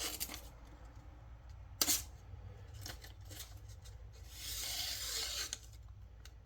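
Kizer Towser K folding knife's 3V steel blade slicing through material in an edge-sharpness test, with a sharp click about two seconds in and a longer slicing rasp about a second long near five seconds in.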